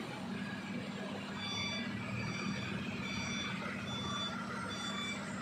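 A vehicle's reversing alarm beeping, starting about a second and a half in at roughly two beeps a second, over a heavy diesel engine running steadily.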